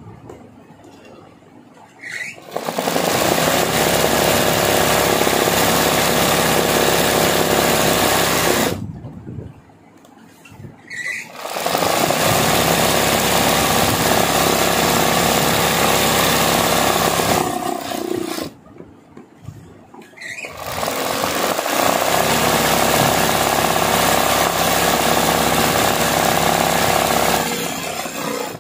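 Sewing machine running at high speed while stitching free-motion embroidery through fabric held in a hoop. It runs in three long stretches of about six seconds each, stopping briefly in between.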